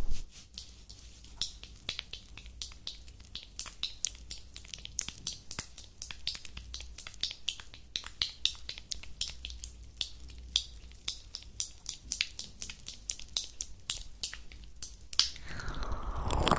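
Crisp clicks of fingertips and fingernails worked close to a pair of ASMR microphones, several a second in an uneven rhythm. A louder, fuller sound starts about a second before the end.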